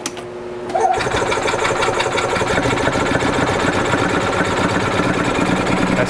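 2002 EZGO TXT gas golf cart engine catching about a second in and then running steadily at half throttle, heard with its air box open. It is an engine that runs weak and seems to get too much fuel, which the mechanic takes for valve trouble.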